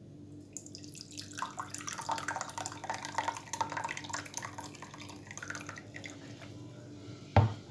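Brewed tea poured from a thermos into a glass tea cup: a splashing trickle that starts about half a second in and goes on for several seconds, then a single loud thump near the end.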